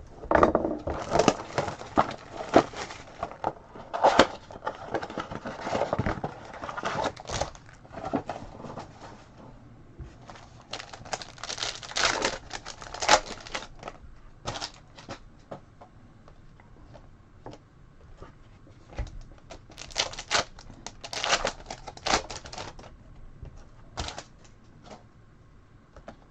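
Trading card blaster box and its foil packs being torn open and the cards handled: irregular crinkling, tearing and light clicks, in loose spells with quieter gaps.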